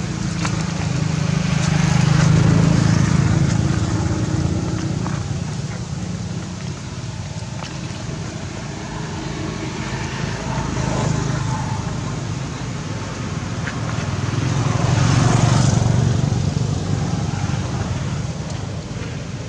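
Motor vehicles passing: a low engine and road rumble that swells and fades several times, loudest about 2 seconds and 15 seconds in.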